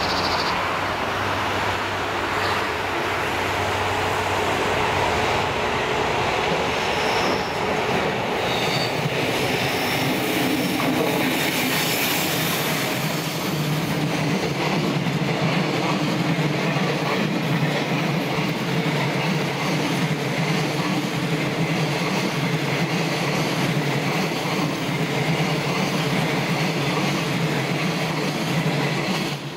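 Freight train of mostly empty flatcars rolling past steadily, its wheels rumbling on the rails, with a few short high squeals from the wheels about a quarter of the way through.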